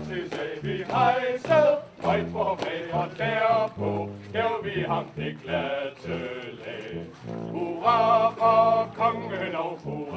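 Vocal music: several voices singing together, choir-like, with some long held notes.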